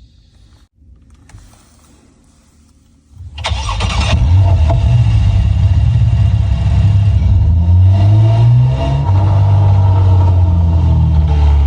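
Artificial engine sound played by an aftermarket sound system on a BYD Yuan electric car: quiet for about three seconds, then a sudden start-up and a deep engine rumble with a few revs rising and falling.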